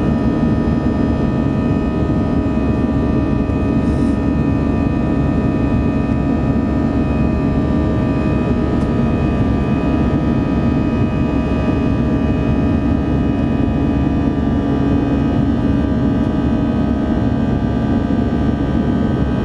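Steady cabin drone of an Airbus A319 airliner climbing after takeoff, heard from inside the cabin: a low rush of jet engines and airflow with a few steady whining tones over it.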